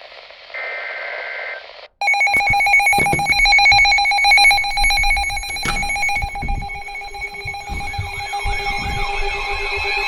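Radio hiss with a one-second burst of alert tones, then a short gap and loud pulsing electronic alarm tones. A rising-and-falling siren wail joins them over the last few seconds.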